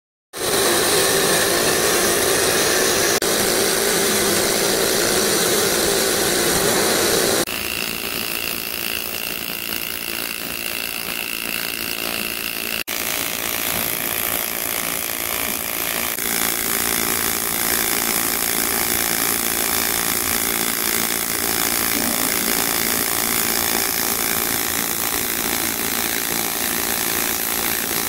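Welding arc on aluminum pipe, a steady hiss that starts suddenly, drops in level and changes character about a third of the way in, and breaks for an instant around the middle.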